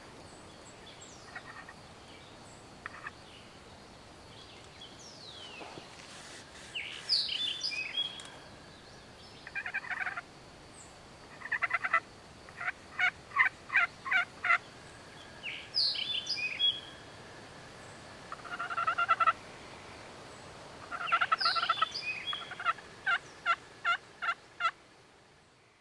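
Wild turkey calling: several gobbles and evenly spaced runs of loud, sharp notes at about three a second, heard repeatedly through the second half. Songbirds chirp high above them.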